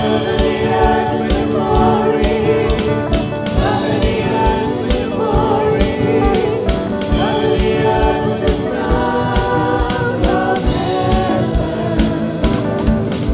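A choir singing with instrumental accompaniment over a steady beat.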